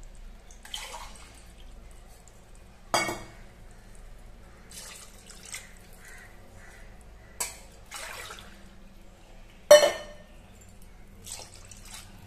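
Water poured from a tumbler into an aluminium pressure cooker of chicken masala, splashing into the liquid in several short, separate pours.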